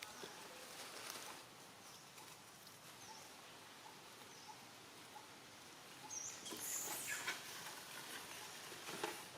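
Faint high-pitched squeak from a young monkey about six seconds in, among light rustling and patter.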